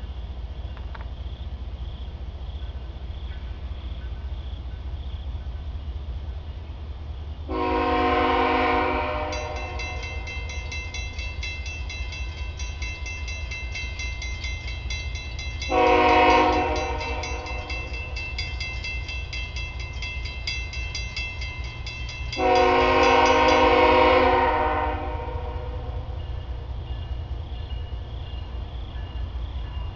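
CSX diesel locomotive's air horn sounding for a grade crossing: three blasts, long, short, long, over a steady low rumble of the approaching train. A bell rings fast and steadily from just after the first blast until the last one ends.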